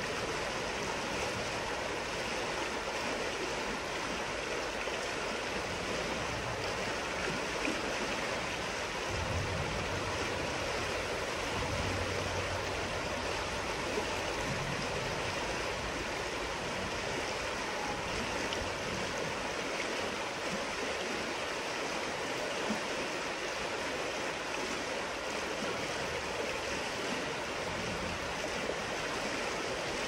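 Flowing river water babbling over shallows, a steady, even rushing wash with no pauses or single events.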